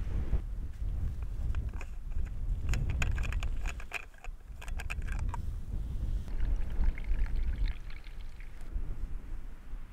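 Wind buffeting the microphone in a low rumble, with a quick run of sharp clicks and rattles from about two and a half to five and a half seconds in.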